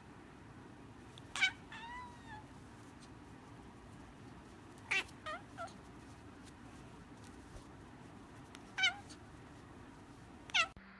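Tabby kitten giving short, sharp, high-pitched cries every few seconds, each one falling in pitch, about six in all, with a softer drawn-out mew about two seconds in.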